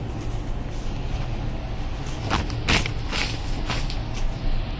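Brown paper bedroll packet crinkling as it is handled, with a few sharp rustles about two to four seconds in, over a steady low rumble.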